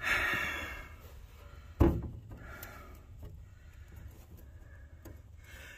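Handling noise: a scrape in the first second, then a single sharp knock of something hard about two seconds in, followed by faint rustling.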